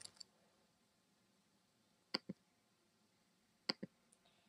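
Near silence broken by three sharp computer clicks: one about two seconds in, then two in quick succession near the end.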